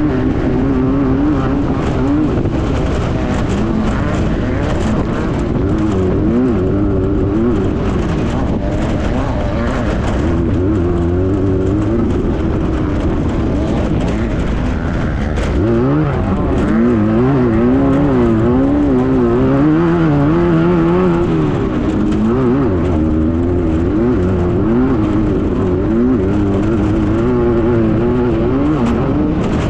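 Air-cooled VW flat-four engine of a Class 9 desert race buggy running hard, its revs rising and falling constantly, over a rattle of knocks and road noise.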